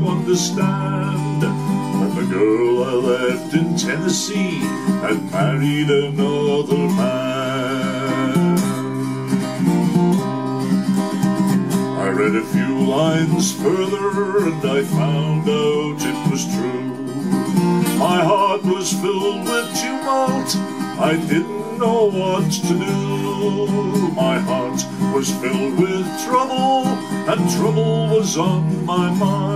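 Instrumental break in a country song: acoustic guitar playing chords under a plucked melody line.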